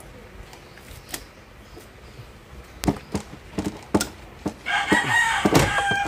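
A few sharp clicks and knocks from hands working on a car's plastic air intake duct, then a rooster crowing loudly near the end, one long call.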